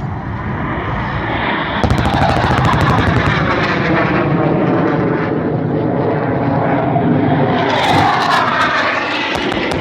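BAE Hawk T2 jet trainers' Rolls-Royce Adour turbofans, loud as the jets make low, fast passes. The jet noise surges about two seconds in and swells again near eight seconds, with a sweeping whoosh each time a jet goes by.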